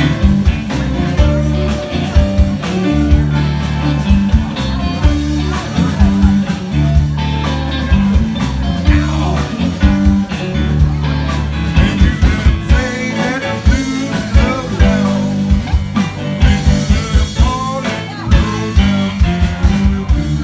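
Live blues band playing: electric guitars over bass and a steady drum beat.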